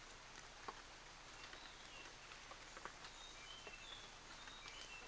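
Near silence: faint outdoor forest ambience with a steady hiss. From about a second and a half in there are a handful of faint, short, high chirps, and a couple of soft clicks.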